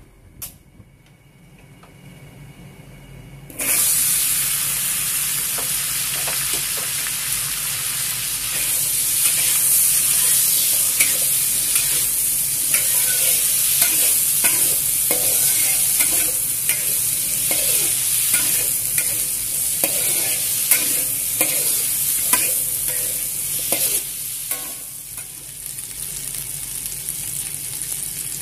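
Diced taro frying in hot oil in a wok: a loud sizzle starts suddenly about three and a half seconds in and runs on steadily, with a metal spatula scraping and clinking as the cubes are stirred. The sizzle eases off near the end.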